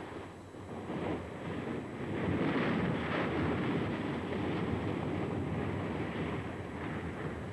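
Stromboli's summit crater erupting: a continuous rushing noise of gas and ash being thrown out, mixed with wind on the microphone, growing louder about two seconds in.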